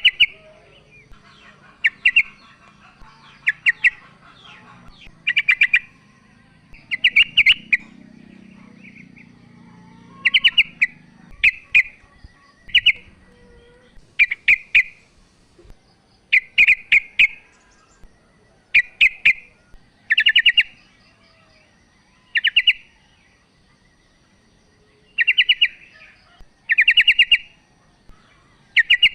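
Female yellow-vented bulbul calling to a male: short bursts of rapid chattering notes, repeated every second or two, with a faint steady high tone between them.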